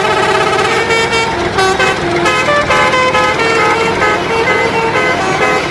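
Musical vehicle horns playing a quick tune of short notes that step up and down in pitch, with several tones sounding at once.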